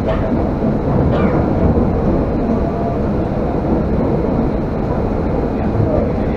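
Steady rumble of an electric commuter train heard from inside the passenger car as it runs along the line.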